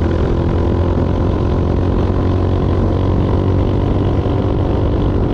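Motorcycle engine running steadily at cruising speed on the open road, heard from the rider's seat.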